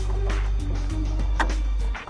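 Background music with a steady deep bass and held tones, with a short sharp click about one and a half seconds in.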